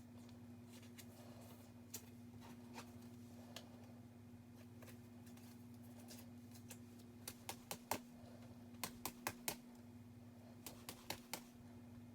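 Trading cards being handled: a few quick runs of light clicks and taps, one about seven seconds in, another around nine seconds and a last near the end, over a steady low hum.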